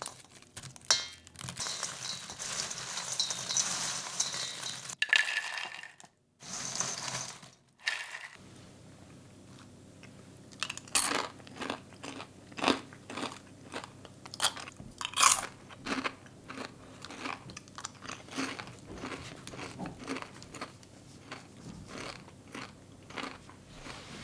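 Caramel-coated popcorn being handled and eaten. Hands first break apart sticky clumps in a metal bowl with a dense crackling. After two brief dropouts, a person crunches and chews the popcorn, with sharp crunches at irregular intervals.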